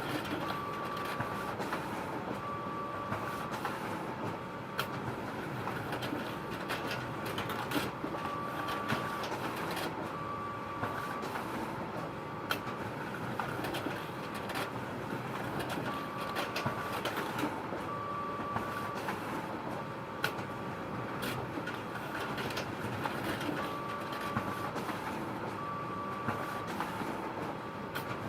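Photocopier running: a steady mechanical whir with scattered clicks. Pairs of short beeps recur every eight seconds or so.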